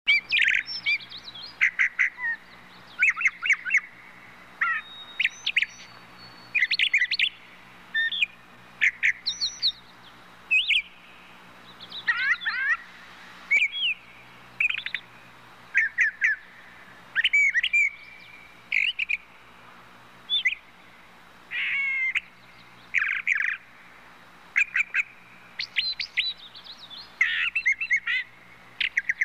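Birds chirping and twittering: short, quick calls sweeping up and down in pitch, coming in clusters every second or two.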